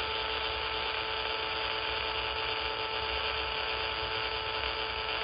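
Over-the-horizon radar signal on 31.000 MHz, heard as demodulated audio from a software-defined radio receiver. It makes a steady "horn" buzz with a clear tone and a few even overtones, over receiver hiss.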